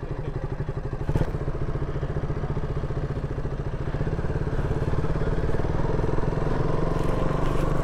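KTM Duke 200's single-cylinder four-stroke engine running at low revs as the motorcycle rides slowly, a steady rapid pulse that picks up slightly about halfway through. A single sharp knock about a second in.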